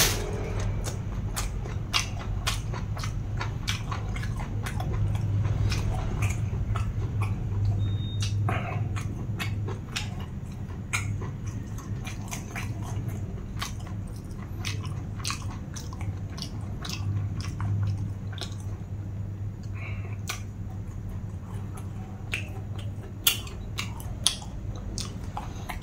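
A man chewing and biting food, a Thai pounded long-bean salad eaten by hand, with many short wet clicks and crunches of eating. A steady low hum runs underneath.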